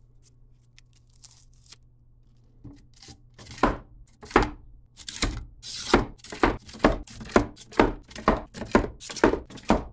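Foil-wrapped aerial firework shells being handled and dropped one after another into fiberglass mortar tubes in a wooden rack: a quick run of knocks and rustles, two or three a second, starting about three seconds in.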